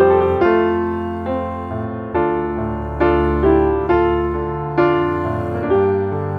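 Background piano music: notes and chords struck about once a second, each ringing and fading before the next.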